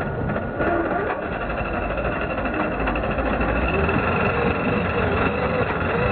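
Radio-controlled 2WD pulling truck's motor whining steadily under load as it drags a weight-transfer sled, growing gradually louder.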